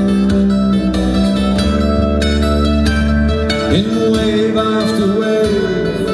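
Acoustic folk trio playing an instrumental passage: strummed acoustic guitar and double bass, with a bowed string line that slides up into held notes a little under four seconds in.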